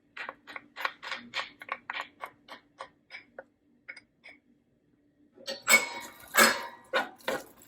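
A kitchen utensil tapping quickly, about four light taps a second, as chopped garlic is added to the pot. Near the end come a few louder scraping strokes.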